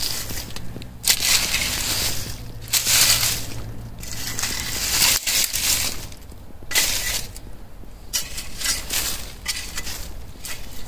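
Soil being scooped and scraped with a metal digging tool: a series of gritty crunching scrapes, several strokes about a second apart, as soil is put back in to raise the bottom of a planting hole dug too deep.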